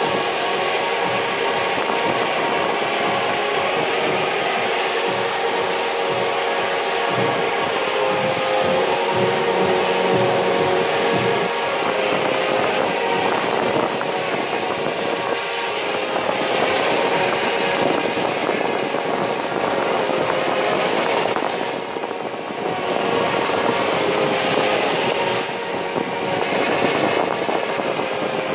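Several Parrot Bebop 2 quadcopter drones flying together, their propellers making a steady buzzing whine of many overlapping pitches. The sound dips briefly about two-thirds of the way through.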